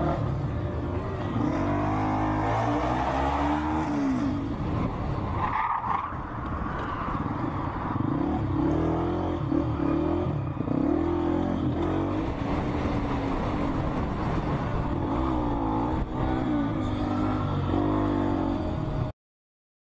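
Motorcycle engine heard from on board, revving up and down repeatedly as the bike accelerates and eases off, with a brief sharper sound about six seconds in. The sound cuts off abruptly near the end.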